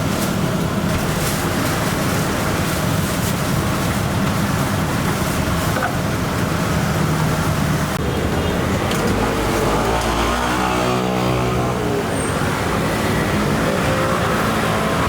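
Loud, steady mechanical roar, with an engine passing by about ten seconds in.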